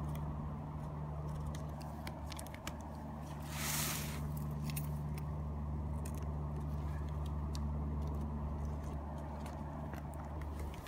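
Steady low hum of an idling vehicle engine, under light scratching and ticking as a key is drawn through the packing tape on a cardboard box, with a short rasp about four seconds in.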